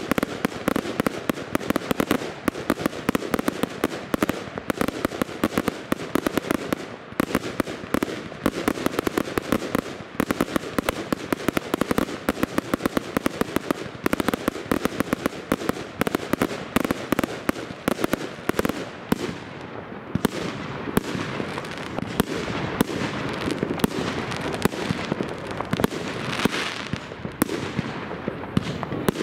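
Aerial fireworks going off in a dense, unbroken string of bangs and crackles. After about two-thirds of the way the cracks lose some of their sharpness.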